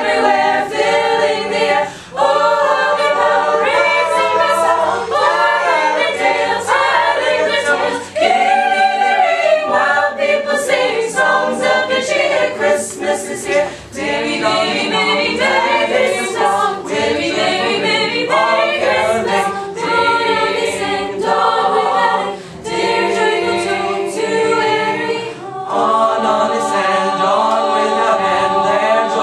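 A mixed-voice high school a cappella choir singing in harmony with no instruments, pausing briefly between phrases and ending on long held chords.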